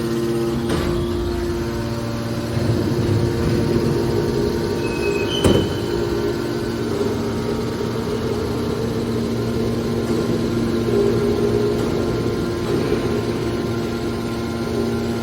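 Hydraulic scrap baler running: a steady hum from its motor and hydraulic pump, with a short high squeak and then a sharp knock about five and a half seconds in.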